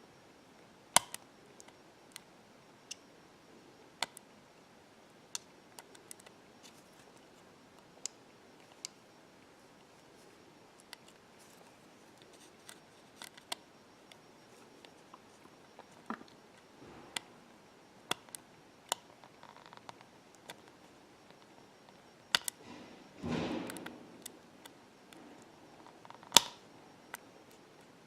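Small repair tools and iPhone 6 parts clicking and tapping during disassembly: sharp, separate ticks every second or two, with a short scraping rustle about two thirds of the way through.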